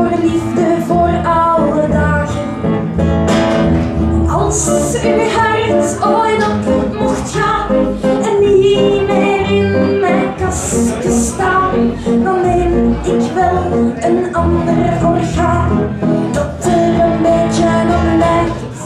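A woman singing with acoustic guitar and double bass accompaniment in a live acoustic performance; the music drops away at the very end.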